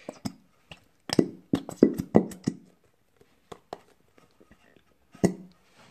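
Thick washable glue being squeezed out of a plastic bottle: a string of short, irregular wet pops and squelches as it glugs out of the nozzle.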